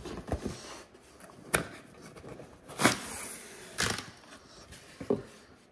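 Cardboard packaging being handled: the box flaps and the printed insert scrape and knock in about five short, separate bursts.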